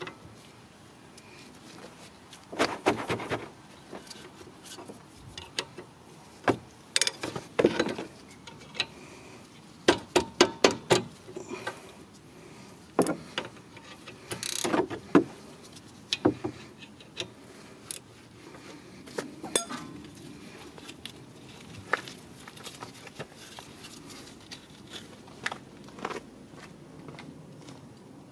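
Metal hand tool clinking, tapping and scraping against a rear disc brake caliper assembly. It comes as irregular short metallic clicks and knocks, some in quick clusters of several taps.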